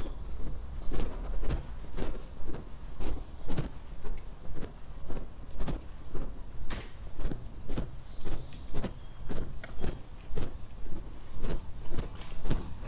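Footsteps of a person walking at a steady pace, about two steps a second, over a low steady rumble.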